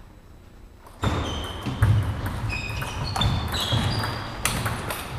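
Table tennis doubles rally in a sports hall: the celluloid ball clicking off bats and table, with short high squeaks of shoes on the wooden floor and thuds of footwork. It is quiet for about the first second before the play sounds start.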